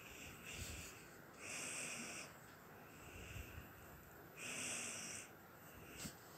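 Faint, even breathing close to the microphone, one soft breath about every one and a half seconds, the strongest about one and a half and four and a half seconds in, with a small click near the end.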